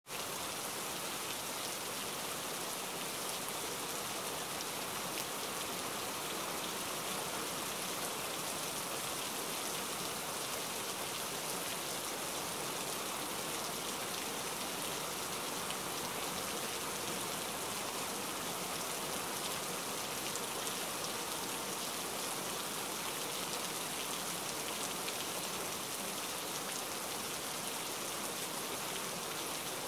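Steady rain falling on the woodland floor, an even patter with no other events, picked up by a trail camera's built-in microphone.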